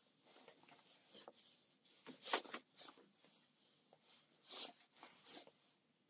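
Rough wooden boards being handled and fitted against a pine frame with gloved hands: a few short, quiet scrapes and rubs of wood on wood and glove on wood, the clearest about two and a half and four and a half seconds in.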